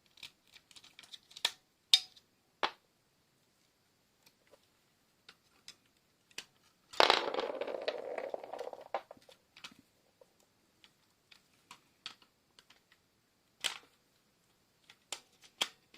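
Plastic clicks and knocks of batteries being worked out of a Furby's battery compartment, with a burst of scraping and rattling about seven seconds in.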